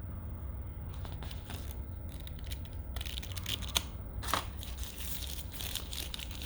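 Crinkling and rustling of packaging handled by hand while a smartphone's accessories are unpacked. It starts about a second in, with a couple of sharper crackles in the middle.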